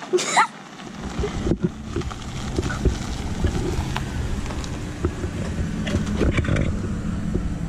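Chevrolet Silverado pickup truck's engine running as it pulls up and idles close by: a steady low rumble with small knocks. A short rising call sounds right at the start.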